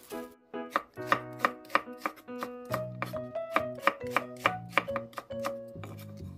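Kitchen knife slicing an onion into thick slices on a bamboo cutting board: a quick run of knife strokes knocking against the board, about three or four a second, stopping about a second before the end.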